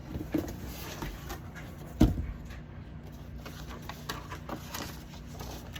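Cardboard box being handled and opened: scattered rustling, scraping and light clicks, with one loud knock about two seconds in.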